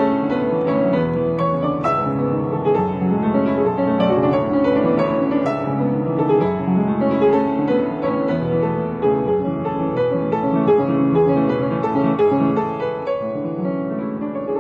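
Piano music playing, a steady stream of notes.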